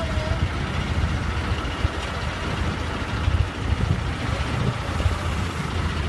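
Diesel engine of a wheeled loader running steadily, a low rumble.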